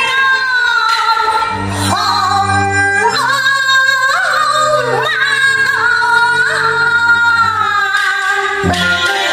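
Puxian opera aria: a solo high voice in the female role sings a slow line of long-held notes that slide and waver in pitch, over instrumental accompaniment with sustained low notes.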